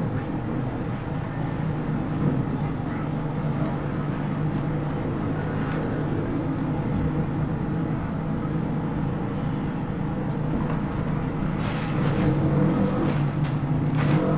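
Steady low droning hum of background noise, with a few faint short knocks near the end.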